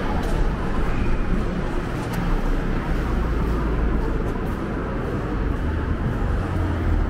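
Steady city street noise: a low, uneven rumble of traffic.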